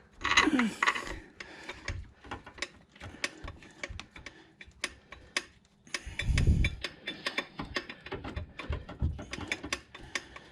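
Socket ratchet clicking in quick runs as a bolt is turned, with a dull low thump about six seconds in.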